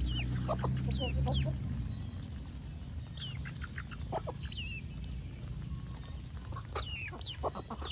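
Mixed farmyard poultry flock of geese, ducks and chickens feeding on grass: scattered clucks, with short high chirps that fall in pitch every second or so. A low rumble is the loudest sound for the first second and a half.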